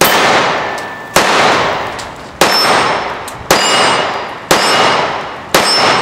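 Ruger SR1911 Officer-style compact .45 ACP pistol fired six times, about one shot a second. Each report is sharp and followed by a long fading echo, and a thin metallic ring comes with most of the shots.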